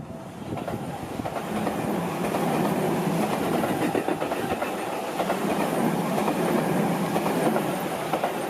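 Seibu Ikebukuro Line electric train passing over the level crossing, its wheels running on the rails. The sound builds about a second in, stays loud and steady, then eases near the end.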